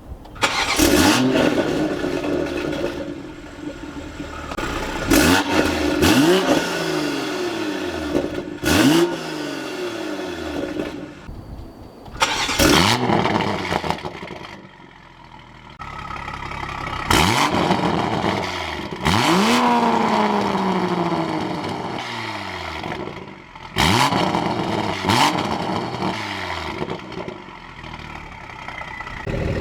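A Toyota A90 Supra's B58 turbocharged inline-six, fitted with a catless downpipe and with the resonator deleted, being revved repeatedly. Each rev snaps up sharply and then falls back toward idle, every few seconds.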